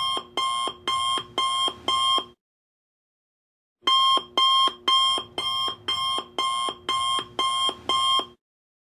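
Alarm clock going off in a rapid run of short repeated beeps, about two a second. It breaks off for about a second and a half partway through, starts again, then stops shortly before the end.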